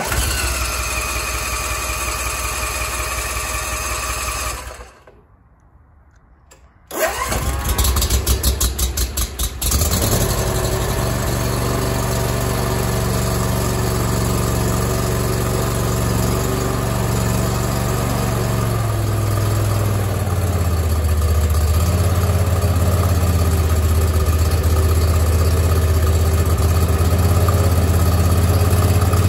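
Electric starter cranking the walk-behind mower's engine for about four seconds without it firing, on choke at half throttle for its first start with fresh fuel. After a short pause a second crank catches, and the engine runs on, its note dropping lower and settling to a steady speed about twenty seconds in.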